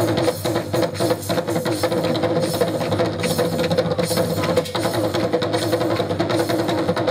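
Qawwali instrumental passage: harmoniums holding sustained reedy chords over a fast, steady percussion rhythm, with no singing.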